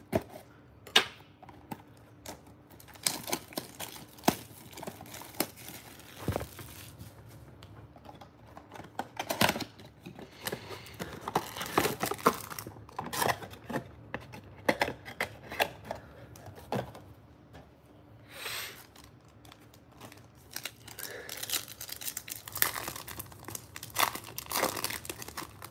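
Cardboard blaster box being ripped open along its tear strip, then foil-wrapped trading card packs crinkling and rustling as they are handled, with foil tearing near the end as a pack is opened. Irregular sharp crackles and rips, busiest in the middle and toward the end.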